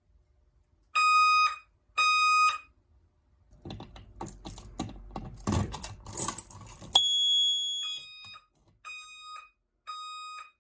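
Fire alarm horn sounding short, evenly spaced electronic beeps about a second apart, as devices are set off during a walk test. In the middle a few seconds of rattling clatter take over, then a higher-pitched tone sounds for about a second before the beeps return, quieter.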